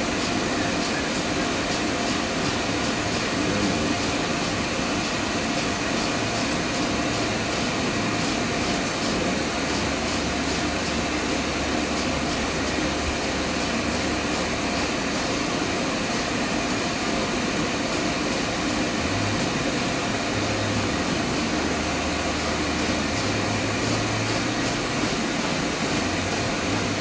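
Dog-grooming stand dryer running steadily, blowing a strong stream of air with an even rushing noise.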